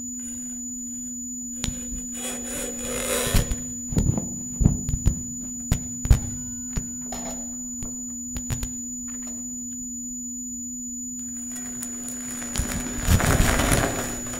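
Electroacoustic improvisation on tabletop guitar and electronics: a steady low sine tone and a fainter high whistle-like tone hold under scattered clicks, taps and scrapes. A short rush of scraping noise comes about three seconds in, and a louder, longer one near the end.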